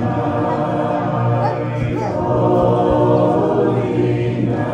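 A choir singing, many voices holding long, sustained notes.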